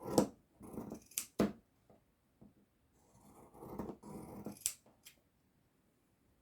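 A dog growling in several short bursts, in two spells with a pause between them.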